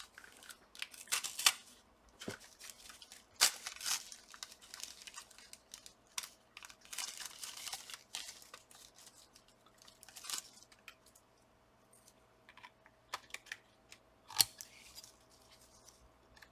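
Irregular rustling and crinkling of plastic packaging, with small clicks and taps from hands handling laptop parts; one sharper click near the end.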